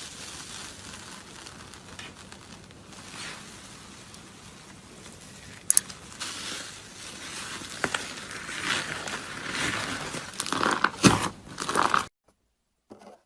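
Slime being mixed and squished by hand, a continuous wet crackling and popping with many small clicks, growing louder over the last few seconds and stopping abruptly about a second before the end.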